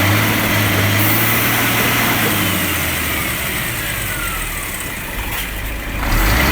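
Scania R-420 six-cylinder diesel held at raised revs under load, easing off a little in the middle and picking up again near the end. The truck is stuck, its drive wheels spinning on ice without grip.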